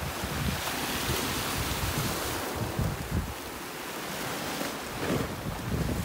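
Sea waves washing onto the shore, with wind buffeting the microphone in uneven gusts.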